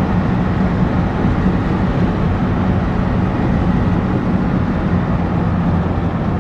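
A vehicle driving: steady engine hum with road noise, cutting off suddenly at the end.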